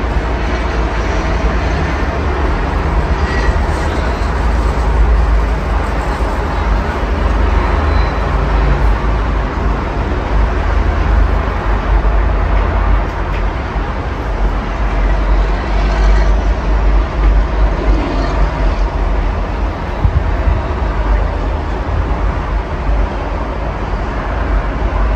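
Steady road traffic noise from a busy multi-lane road below: cars, vans and trucks passing continuously as a constant wash of tyre and engine noise with a heavy low rumble.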